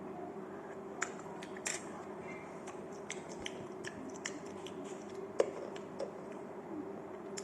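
Eating sounds: irregular small clicks and taps of utensils and food, with chewing, over a steady low hum. The sharpest click comes about five and a half seconds in.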